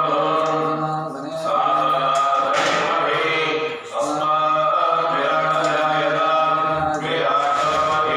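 Male voices chanting Hindu mantras in unison on a steady recitation pitch, with short breaks for breath about a second in, near four seconds and near seven seconds.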